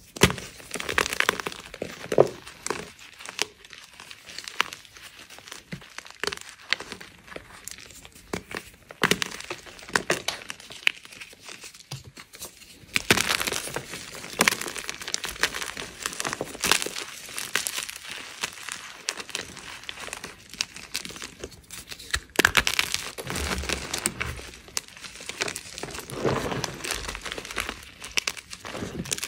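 Blocks of gym chalk crushed and crumbled between the fingers among loose chalk powder: a continuous dry crunching and crackling made of many small snaps, with louder, busier stretches about halfway through and again a little later.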